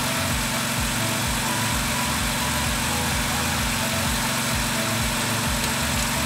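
A 2010 Jeep Wrangler's 3.8-litre V6 idling steadily.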